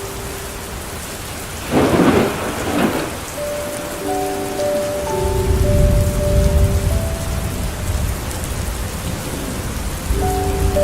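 Steady rain falling, with a sharp thunderclap about two seconds in and a low rolling rumble of thunder from about halfway on.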